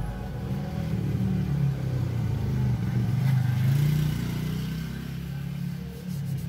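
A motor vehicle engine passing by: a low rumble that grows louder to a peak about four seconds in, then fades.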